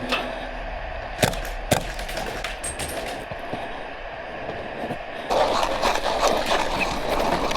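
Airsoft gunfire: two sharp shots about half a second apart, a little over a second in. From about five seconds in comes a louder stretch of many small rapid clicks and rustle.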